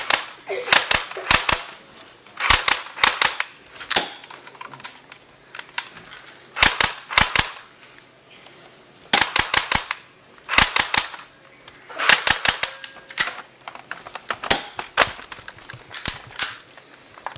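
Airsoft gun firing in rapid volleys of several sharp shots, one volley every second or two.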